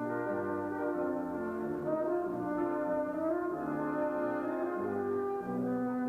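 Background music led by French horn and brass in a slow, held melody.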